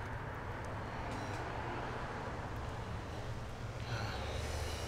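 Steady low rumble of city background noise, the hum of distant traffic.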